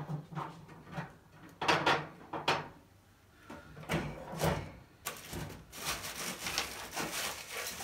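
A new roller cab tool chest and its packaging being handled. There are several separate knocks and rubs, then continuous rustling from about five seconds in.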